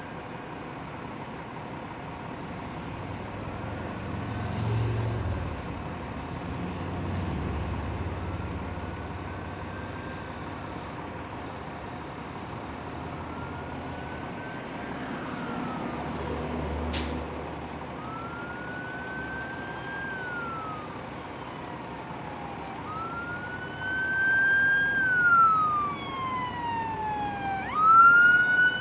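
Cars and trucks passing, with engines and tyres rumbling, while an emergency vehicle's siren wails, rising and falling in pitch. The siren is faint at first and grows loud in the last few seconds, jumping sharply up in pitch near the end.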